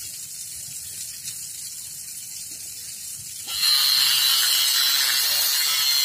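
Angle grinder with a cutting disc biting into the steel shell of a hermetic fridge compressor to cut it open. About three and a half seconds in, it starts suddenly as a loud, steady, high grinding hiss. Before that there is only a fainter steady hiss.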